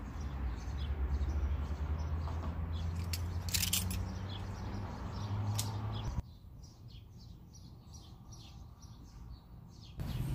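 Small birds chirping repeatedly over a low steady hum, with a few sharp clicks during the first six seconds. About six seconds in, the hum and clicks drop out suddenly and only the chirping remains.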